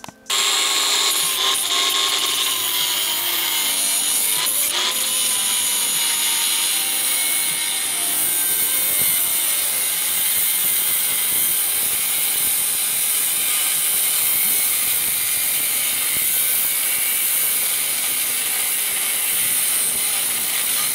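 Cordless DeWalt cutoff tool cutting through a metal seat bracket, its abrasive wheel grinding steadily with a faint wavering whine; it starts suddenly at the very beginning.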